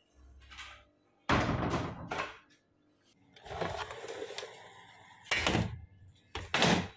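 Handling noises of household objects being moved and set down: a few sudden thuds and clatters, with a longer rustle in the middle.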